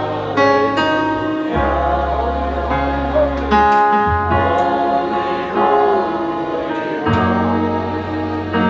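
Gospel praise music: voices singing as a choir over instrumental accompaniment, with long held bass notes that change about every one to two seconds.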